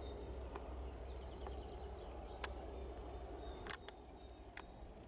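Quiet outdoor ambience: a low steady rumble that eases off near the end, faint high chirps, and several sharp scattered clicks.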